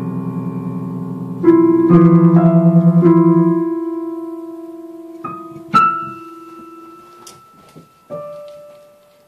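Piano keys pressed by a cat's paws as it walks along the keyboard. A loud low cluster of notes sounds about one and a half seconds in, then a few scattered single notes, each left ringing and fading. The last one comes about eight seconds in.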